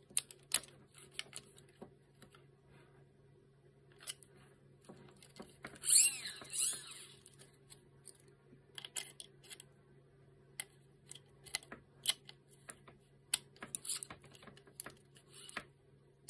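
Small screwdriver tightening screws into a 3D-printed plastic robot-arm base joint: scattered light clicks and scratches of metal on plastic, with a louder scrape about six seconds in.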